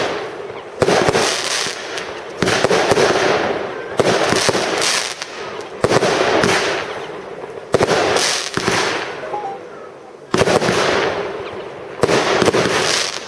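Large compound fireworks battery firing. A new salvo goes off with a sudden bang every one and a half to two and a half seconds, about seven times, and each one trails off in a hissing, crackling noise that fades.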